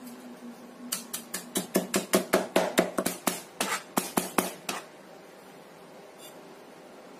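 Kitchen knife mincing garlic cloves finely: a quick run of sharp chops, about six a second, starting about a second in and stopping after about four seconds.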